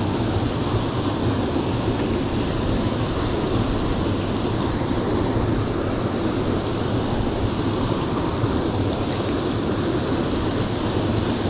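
Steady rushing of a small creek's flowing water, an even noise with no breaks.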